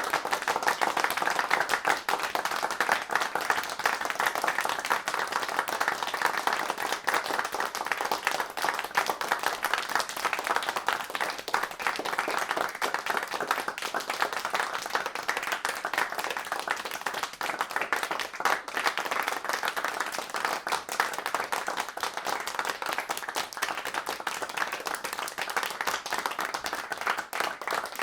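A large group applauding: many hands clapping at once in a dense, steady wash of claps.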